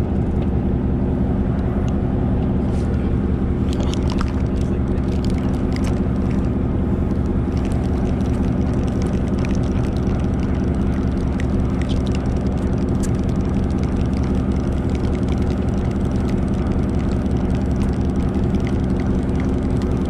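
Party fishing boat's engine running steadily, a low hum made of several even tones, with a few faint clicks on top.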